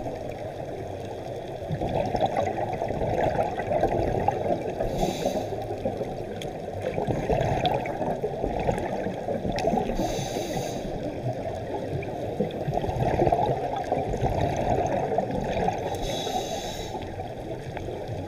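Scuba regulator breathing heard muffled underwater. There are three short hisses, five to six seconds apart, and a bubbling rumble of exhaled air swells between them.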